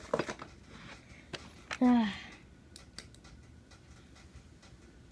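Light clicks and taps of small plastic fishing tackle, a bobber, being handled, with one short voiced sound falling in pitch about two seconds in.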